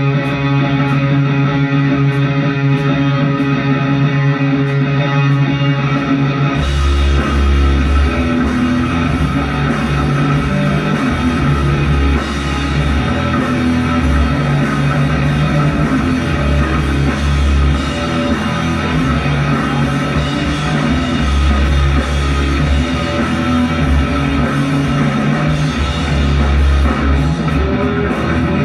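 Live rock band playing. Electric guitar plays alone at first, then about six seconds in the drums and bass come in and the full band plays loud rock.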